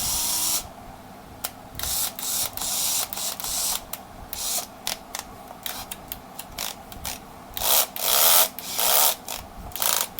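A used National cordless drill run in short bursts on the trigger, about a dozen quick runs with pauses between them.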